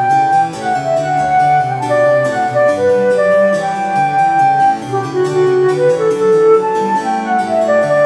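Instrumental background music: a flute melody of held notes over piano accompaniment.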